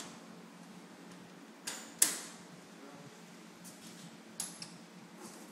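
Levers of a 1920s Union Switch & Signal railroad interlocking machine being thrown to set switches and signals: a few sharp metallic clacks. The loudest comes about two seconds in and rings briefly, with smaller clicks near four and four and a half seconds.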